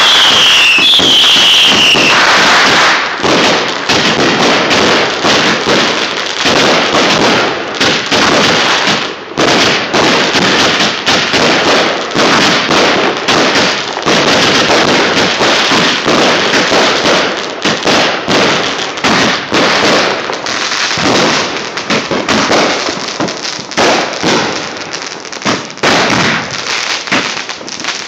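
Fireworks going off in a loud, dense barrage of rapid crackling pops that runs without a break, with a falling whistle in the first couple of seconds.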